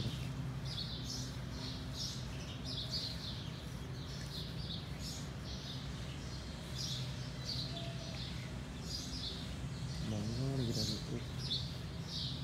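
Small birds chirping over and over in short, high calls, over a steady low hum.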